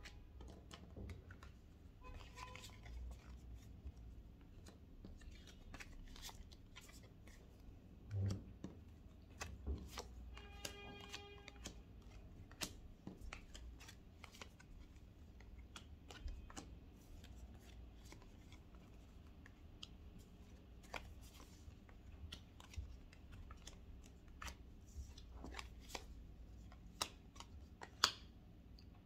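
Tarot cards being shuffled and handled in a small room: faint scattered clicks and flicks of card stock, with a soft thump about eight seconds in and a brief pitched tone about ten seconds in.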